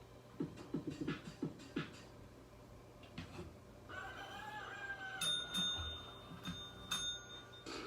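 A cat pressing the keys of an electronic sound-effects keyboard: a few soft taps, then a held, slightly wavering electronic sound about four seconds in, followed by high steady ringing tones that stop and start.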